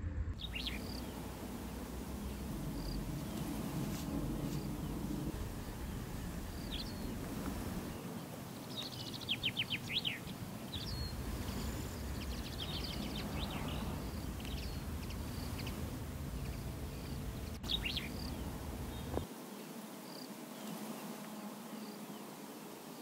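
Birds chirping now and then outdoors, including a quick run of several chirps about nine seconds in, over a steady low background rumble that fades near the end.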